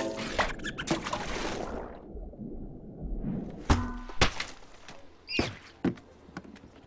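Cartoon sound effects: a rushing splash of water as an octopus is snatched up out of the water, then two sharp hollow thunks and a short, high squeaky cry. Another thunk comes near the end as a plastic cooler box is set down on a table.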